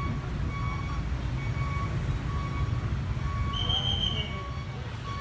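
Outdoor ambience: a steady low rumble, with a faint electronic beep repeating about twice a second and a short, high, whistle-like tone near the end.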